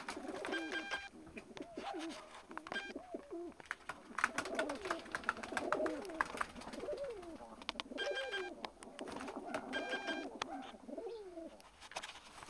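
Several hooded fancy pigeons cooing, their low swooping coos following and overlapping one another, with scattered light clicks.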